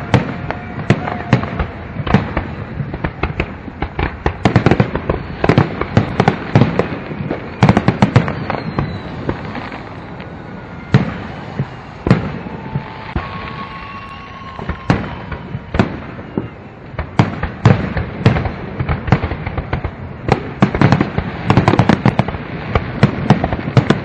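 Fireworks display: rapid bangs and crackling bursts going off one after another, with a few faint whistles. The volleys are densest in the first third and the last third, thinning out in the middle.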